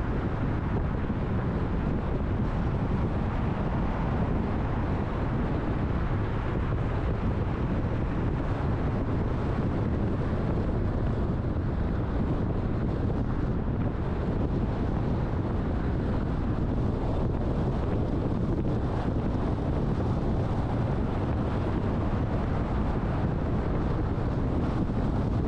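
Car driving: steady low rumble of road and wind noise, with no marked changes.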